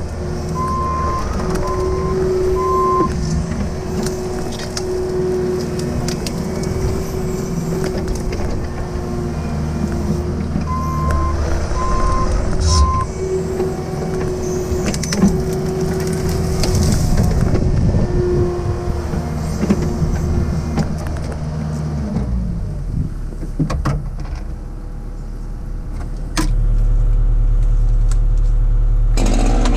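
Cat 306 mini excavator's diesel engine running under load with a steady hydraulic whine as the boom and bucket work brush, with crackling and snapping of branches. A set of three short beeps comes twice. Past the middle the engine note falls away, and near the end a louder, steady low drone takes over.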